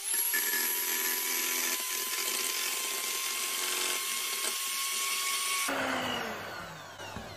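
Electric hand mixer beating egg whites into meringue, its motor whining at a steady high pitch after stepping up in speed right at the start. About six seconds in the whine falls in pitch and fades as the mixer slows down.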